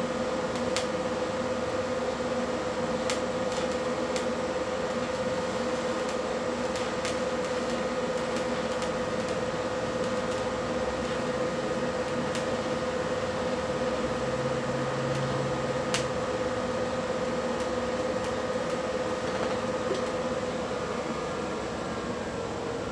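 DC TIG welding arc on steel from an HTP Invertig 221 inverter welder, a steady humming buzz with a faint hiss and a few light ticks, easing off near the end as the arc is broken.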